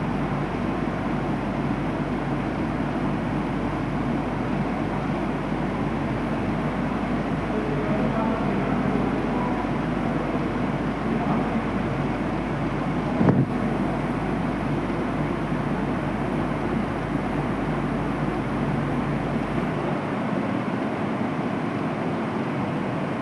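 Steady, loud machinery noise of a running steam boiler and turbine plant, with a single sharp knock about halfway through. A low steady hum underneath cuts out near the end.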